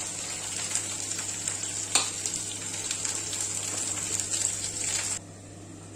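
Food frying in oil in a pan, a steady crackling sizzle, with a single knock about two seconds in; the sizzle cuts off abruptly about five seconds in.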